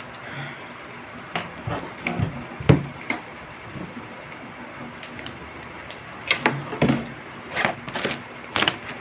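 Scattered plastic clicks and knocks as a chin mount for an action camera is handled and pressed into place on an EVO motorcycle helmet's chin. One sharper knock comes about three seconds in, and a quick run of clicks follows near the end.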